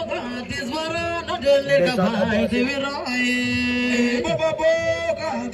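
A man singing or chanting in long held notes that slide between pitches.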